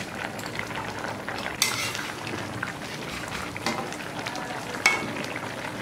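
Bengali fish curry bubbling on the boil in a pan, with two sharp clinks, about a second and a half in and near the end.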